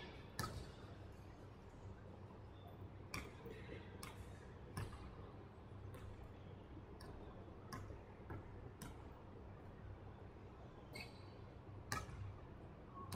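Basketball bouncing on a hardwood gym court: faint, single thumps at uneven intervals, each with a short echo in the large hall.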